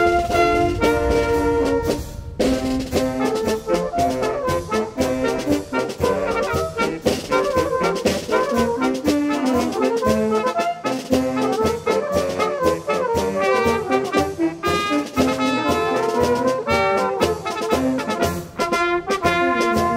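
A small fanfare band of trumpets, saxophones and low brass playing a tune together, with drums keeping a steady beat.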